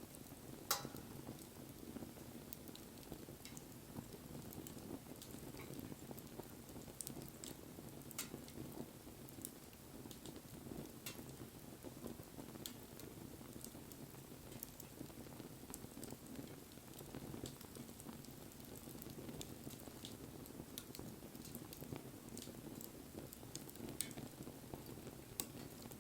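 Wood fire burning: a steady low rush of flame with scattered crackles and sharp pops from the burning wood, the loudest pop just under a second in and others near the end.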